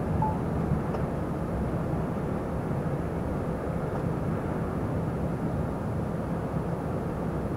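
Heavy truck cruising at motorway speed, heard from inside the cab: a steady engine drone mixed with tyre and road noise.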